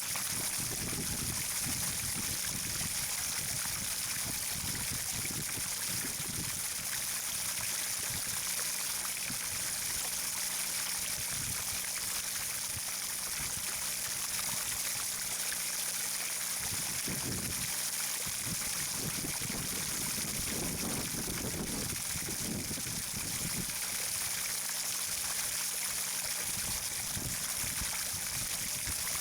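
Steady trickling, running water, continuous and even throughout.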